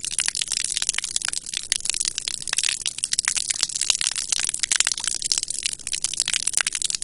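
Water from a hose spraying onto concrete: a steady, mostly high-pitched spatter of many sharp droplet hits.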